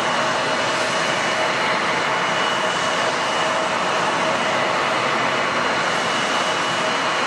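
Airbus A350-941's twin Rolls-Royce Trent XWB turbofans at takeoff thrust as the airliner lifts off and climbs away: a steady, even jet noise with two steady tones running through it.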